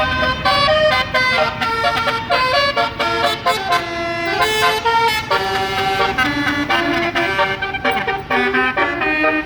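Tour bus's basuri telolet air horn playing a quick multi-note melody, the pitch stepping up and down from note to note.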